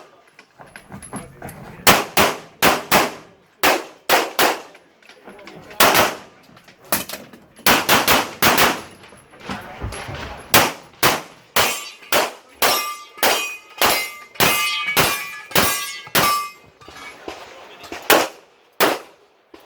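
Pistol fired in quick strings of shots during a USPSA stage, with short pauses between strings. Steel targets ring out after hits through the middle part of the run.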